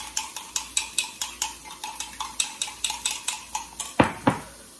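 A metal fork beating eggs in a cup, a fast run of clinking strokes about five a second, then two louder knocks near the end as the whisking stops.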